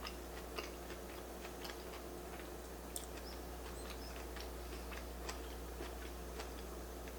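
Faint, irregular clicks and mouth sounds of someone chewing cauliflower-rice sushi, over a steady low hum.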